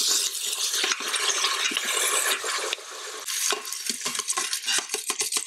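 Beef broth poured into a hot stainless-steel Instant Pot inner pot on sauté, sizzling and hissing on the onions and browned fond as the pot is deglazed, with metal tongs scraping and clicking against the pot bottom. The hiss is strongest for the first few seconds and eases, while the tong scrapes and clicks come through more in the second half.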